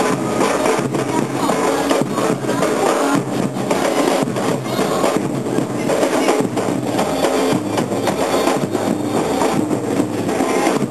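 Afro-Brazilian carnival street percussion group playing loud and close: a large section of marching drums beating out a steady, driving rhythm together.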